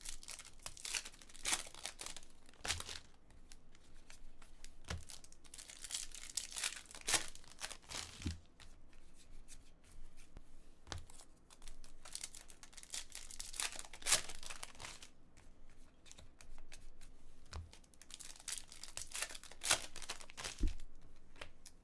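Foil trading-card pack wrappers being torn open and crinkled, with cards handled between openings: a run of irregular short tearing and crinkling rustles.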